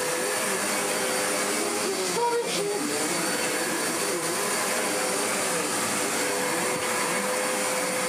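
Hoover Enigma upright vacuum cleaner running on carpet, pushed back and forth over the pile. It makes a steady suction and motor noise with a constant tone, and the note wavers slightly as the machine moves.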